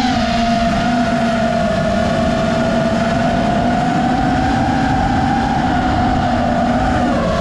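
FPV quadcopter's motors and propellers whining steadily, the pitch dipping briefly at the start and again near the end as the throttle eases.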